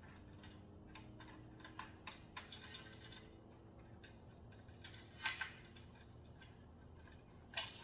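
Light, irregular clicks and ticks of bicycle parts being handled, with two louder clicks about five seconds in and near the end.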